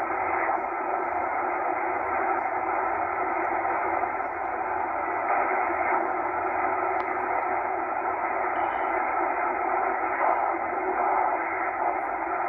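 Static from a Tecsun H-501X shortwave receiver in upper-sideband mode as it is tuned across empty frequencies: a steady, narrow-band hiss with no station coming through.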